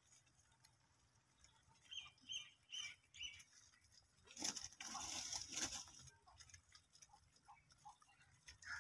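Faint rustling of cut grass and straw as a crowd of domestic rabbits feeds, loudest for about a second and a half in the middle. A few short, faint chirps come about two seconds in.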